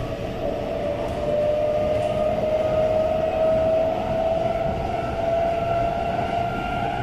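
Inside the carriage of an SMRT C751B metro train running between stations: the traction motors' whine rises slowly and steadily in pitch as the train gathers speed, over the rumble of the wheels on the track.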